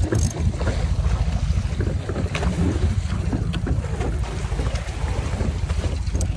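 Wind buffeting the microphone on a moving boat, over the rush of water churning along the hull.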